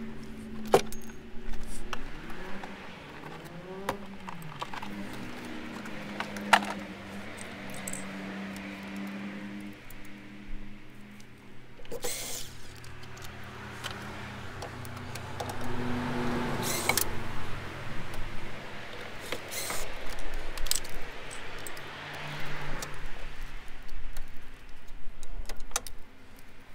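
Scattered plastic clicks, knocks and rattles from a Mini door trim panel being pulled off and the inner door-handle parts being handled, over a low steady hum.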